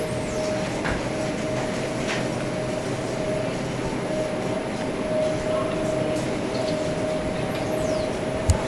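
Steady mechanical rumble and hum of a large store's background noise, with one constant tone and a few faint ticks.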